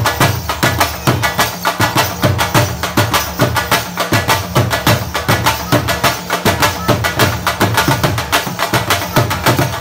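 Several dhols played live together in a fast, driving dhamal rhythm: deep bass strokes under sharp, high, cracking strikes, at about four to five beats a second.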